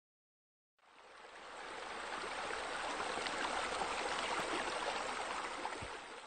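Steady rush of running water, fading in just under a second in and then holding even.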